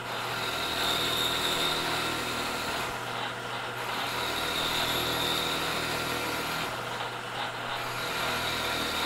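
Vertical milling machine plunge milling a pocket in cast jig plate, the end mill cutting straight down in repeated plunges with the spindle running steadily. The cutting noise eases off briefly about three seconds in and again about seven seconds in.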